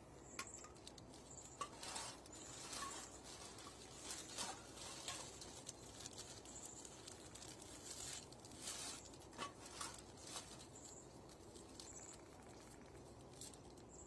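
Faint doorbell-camera microphone pickup: soft irregular clicks and rustles over a low background hiss, with brief high blips now and then.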